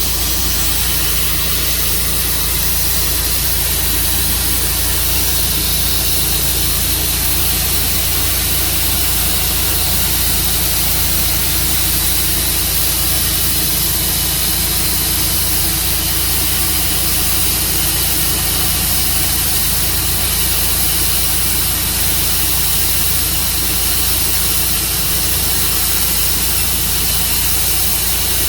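Tru Cut sawmill running steadily, its engine and blade sawing through a black walnut log, with a constant hiss over the engine hum.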